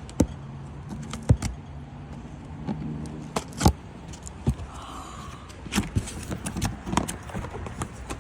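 Irregular knocks, clicks and rattles of a scooter and its cardboard box and packaging being handled during unboxing, over a steady low hum that fades about halfway through.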